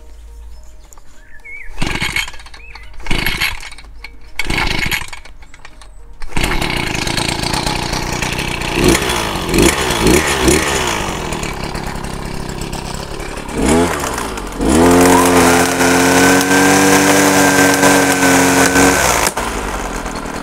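Nikkari SXD-50N brush cutter's two-stroke engine being pull-started: a few short pulls on the starter cord, then it catches about six seconds in. It is blipped a few times, then held at high revs with a steady high note for several seconds before dropping back near the end.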